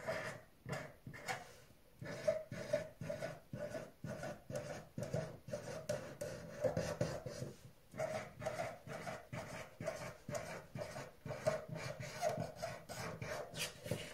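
Red felt-tip pen scratching across paper on a wooden table in quick short strokes, about three a second, as small loops and beads are drawn, with a brief pause about eight seconds in.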